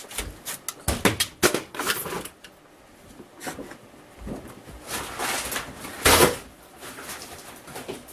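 Pieces of a camper shell's wall panelling and framing being pulled and broken away by hand: an irregular run of sharp cracks, snaps and clatters, the loudest about six seconds in.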